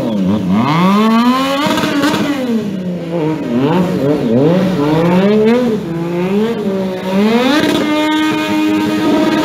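Motorcycle engine revving up and down over and over as the stunt bike circles and drifts, then from about seven and a half seconds held steady at high revs while the rear tyre spins in a smoky burnout.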